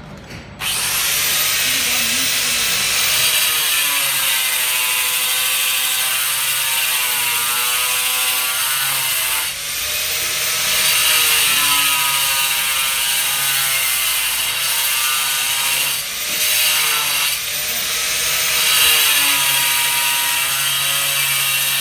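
Angle grinder with a cutting disc cutting into a marble slab. It starts up about half a second in and runs loud and steady, its pitch wavering as the disc bites into the stone.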